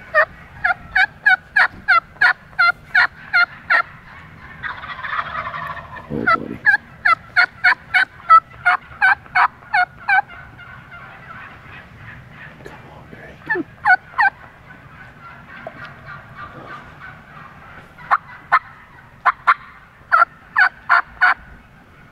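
Wild turkeys yelping: runs of short, sharp notes, about three a second, repeated in several strings. Between the first two strings comes a brief rough, rattling burst about five seconds in.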